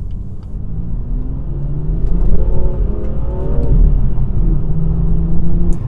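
BMW M2's turbocharged straight-six engine running under way, its revs rising and falling about two seconds in, then holding steady.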